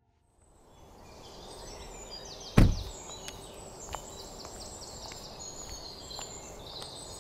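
Birds chirping over a steady outdoor background that fades in at the start. About two and a half seconds in, a Suzuki Swift's car door shuts once, loudly. A few faint taps follow.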